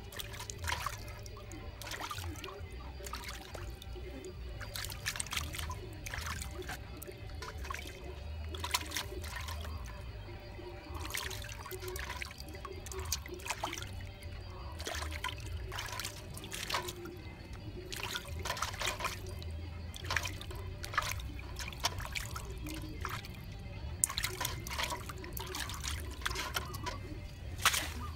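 Hands washing pieces of raw fish in a metal basin of water, with many small splashes, drips and trickles as the flesh is rubbed and lifted out.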